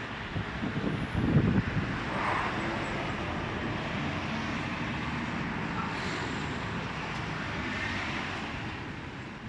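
Steady outdoor rumble of motor vehicles, with a few low bumps about a second in.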